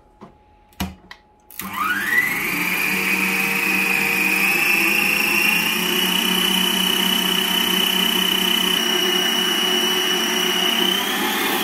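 A 1000 W electric stand mixer switched on: after a single click, its motor whine climbs quickly to a high pitch and then runs steadily as the wire whisk beats the batter of eggs, sugar and oil in its steel bowl.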